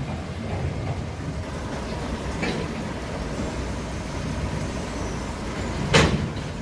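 Heavy log-handling machinery running with a steady low rumble. A faint knock comes about two and a half seconds in, and a sharper, louder clank about six seconds in.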